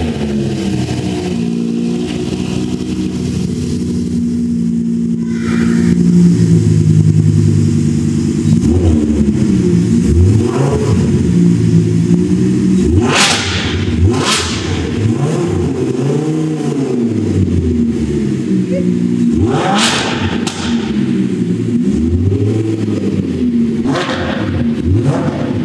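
Lamborghini Huracán LP580-2's 5.2-litre V10 running through a newly fitted Fi Exhaust catless, straight-through valvetronic system. Just after starting it idles steadily, then from about eight seconds in it is revved again and again in quick blips, its pitch rising and falling with each one.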